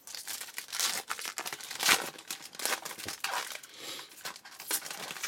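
Foil Bowman Chrome baseball-card pack being torn open and crinkled by hand: a run of sharp crackles and rustles, the loudest about two seconds in.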